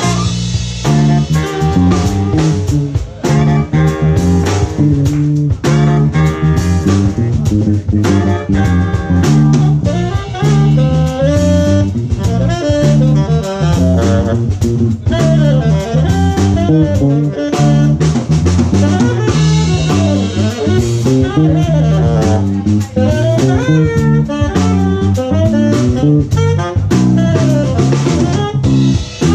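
A live horn band of trumpet, trombone and saxophones plays a jazz-funk tune over a drum kit and a repeating low bass line.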